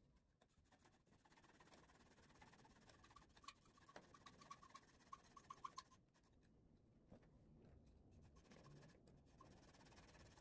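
Faint strokes of a small hand saw cutting a thin wooden part of a model ship's hull, with a quick run of short, evenly spaced strokes a few seconds in.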